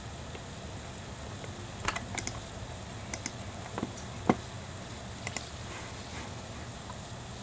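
A handful of short, light clicks and taps, scattered unevenly a fraction of a second to a second apart, over steady background noise.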